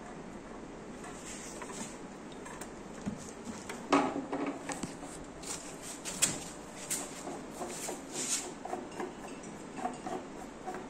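Knocks and small clicks of flat-pack furniture assembly: a wooden leg being turned by hand into a metal mounting plate on the TV unit's panel. The sharpest knock comes about four seconds in.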